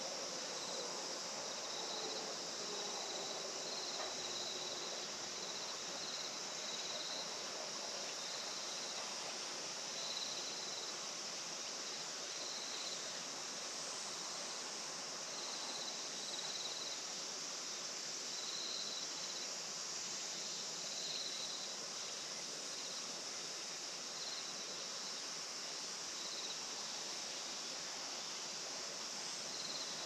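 Insect chorus: a steady high-pitched shrill, with one insect chirping in short runs that start and stop over and over.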